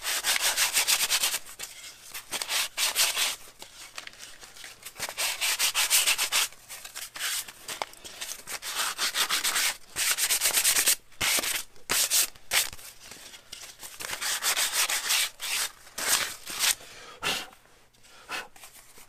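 Sandpaper rubbed by hand around the inner curved edge of a glued-up wooden casting pattern, in spells of quick back-and-forth strokes with short pauses between them. The sanding dies away near the end.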